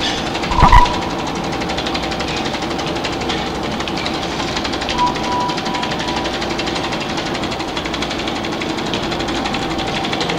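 Experimental noise performance built on a running 16mm film projector: a steady, rapid machine-like clatter and buzz. A short burst of louder low thumps with a ringing tone comes just under a second in, and a faint high tone sounds briefly about five seconds in.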